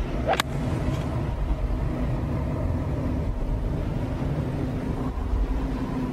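A golf club strikes a ball once with a sharp crack, over a steady low rumble.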